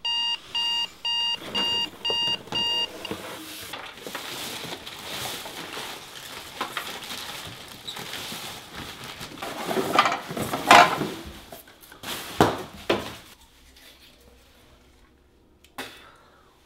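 Digital alarm clock beeping six times, about two beeps a second, stopping about three seconds in. Then rustling of blankets and bedding as someone stirs and gets up, with a few louder bursts of rustling and knocks around the middle.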